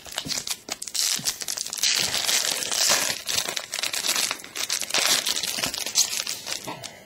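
Foil wrapper of a trading-card pack crinkling and crackling as it is torn open and handled, with a steady run of small rustles and clicks.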